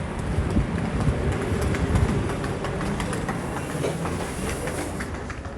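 Train running: a steady rumble with the clatter of wheels over the rails.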